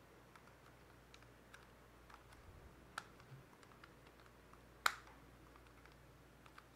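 Light plastic clicks and taps from handling a DJI Mini 2 drone's body and folding arms, with a sharper click about five seconds in and a smaller one about three seconds in.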